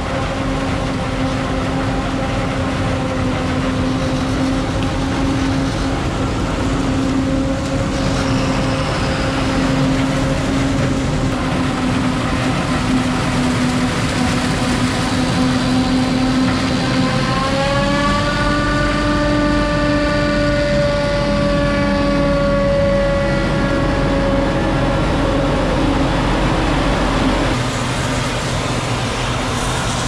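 Claas Jaguar 940 self-propelled forage harvester chopping maize, with a tractor and silage trailer running alongside: a loud, steady machine drone and whine. About halfway through, the whine rises in pitch, then slowly eases down, and it drops away a little near the end.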